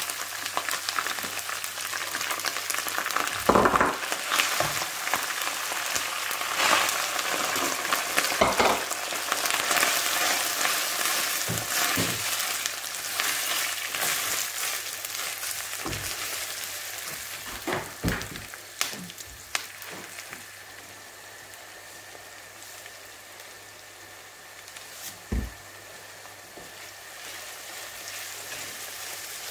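Chopped garlic, ginger and sliced onion sizzling in hot oil in a nonstick frying pan, stirred with a wooden spatula that knocks against the pan now and then. The sizzling eases and grows quieter over the last third.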